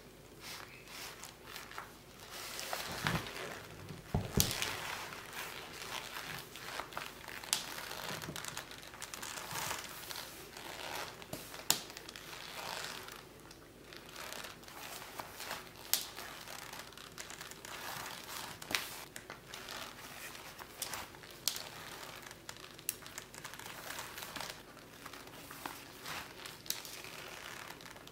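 Laces being drawn through the eyelets of a 20-hole Steel Ranger leather boot and pulled tight, with irregular rustling and rubbing of leather and a few sharp ticks.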